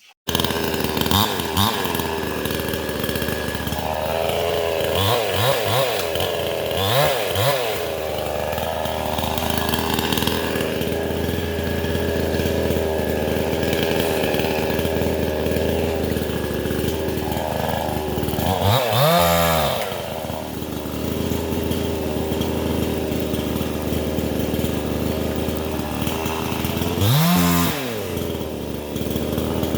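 Vevor 62cc two-stroke chainsaw with a 20-inch bar running steadily, its engine pitch climbing and dropping back several times as the throttle is worked.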